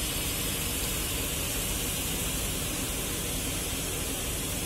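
Steady background noise: an even hiss with a faint low hum underneath, unchanging throughout.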